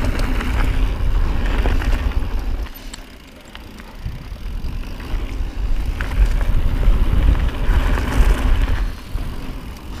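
Wind buffeting the microphone of a camera on a moving mountain bike, over tyres crunching on dry dirt and small rattles and ticks from the bike. The rumble eases about three seconds in, then builds again.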